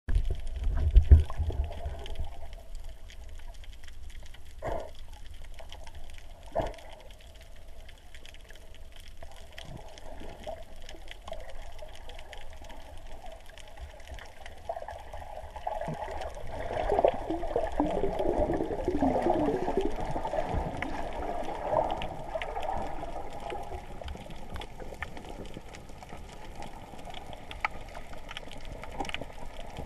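Underwater ambience heard through a camera's waterproof housing: a steady low muffled rumble of water with a few sharp clicks. About halfway through comes a stretch of bubbling gurgle that lasts several seconds.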